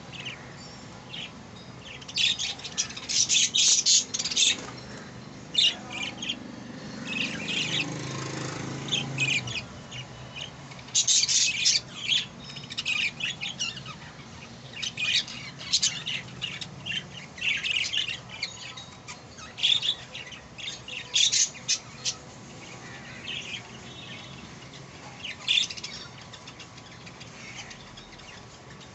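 Budgerigar chicks squawking and chirping in repeated short, harsh calls that come in clusters, with a few quieter gaps between them.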